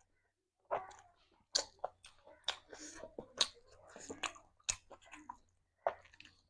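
A person chewing a mouthful of curry and rice close to the microphone: irregular wet mouth smacks and clicks, starting about a second in.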